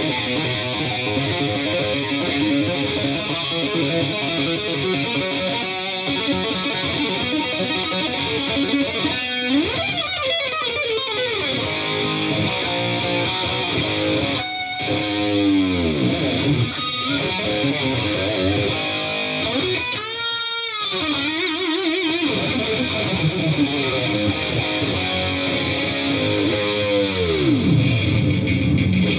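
Jackson Soloist SLX electric guitar played through a Marshall JVM amp, a continuous run of notes and chords with several deep swoops of pitch down and back up.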